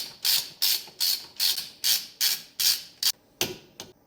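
Ratchet wrench clicking in quick, even back-and-forth strokes, about two or three a second, as the brake caliper bolts are run in, with a couple of weaker strokes near the end.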